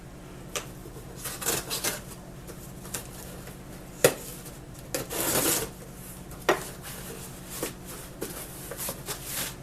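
Cardboard shipping package being opened and handled by hand: rubbing and scraping with a few sharp knocks, the loudest about four seconds in, and a longer rustling burst about five seconds in. A faint steady low hum sits underneath.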